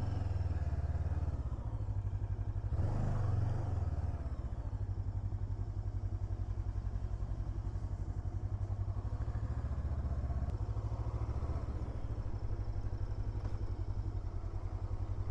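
Maverick 500 motorcycle engine running at low revs as the bike rolls slowly, a steady low pulsing beat with a short rise in level about three seconds in.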